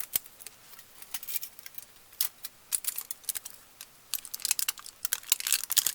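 Aluminium foil being crinkled and pressed into place by hand, with tape, in scattered small clicks and rustles that grow busier near the end.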